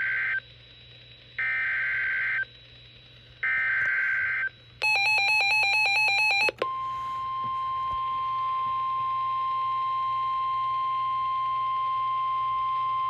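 Emergency Alert System header: three short bursts of buzzing data tones, each about a second long with a second's gap, then a rapid warbling beep for under two seconds. From about six and a half seconds in, a long steady single-pitch warning alarm tone holds, the tone that precedes a National Weather Service warning broadcast.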